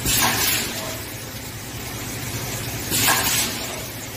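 Automatic tarpaulin hemming and punching line running with a steady hum. A short, loud hiss of compressed air from its pneumatic units comes at the start and again about three seconds later.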